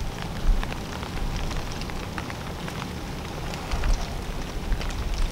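Scattered water drops pattering irregularly on leaf litter and branches, over a steady low rumble.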